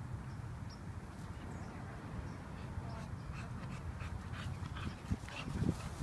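Dogs play-wrestling on straw: scuffling with short dog noises, growing busier in the second half, with two louder thumps near the end.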